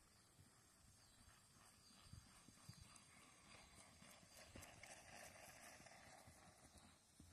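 Faint, irregular dull hoofbeats of a horse loping across grass under a rider.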